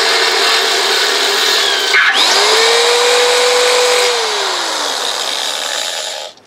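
Corded electric drill boring a hole through the steel bow of a narrowboat with a twist bit. The drill stops briefly about two seconds in and starts again, its motor pitch climbing back up, then slowing and dropping from about four seconds, and the sound cuts off suddenly near the end.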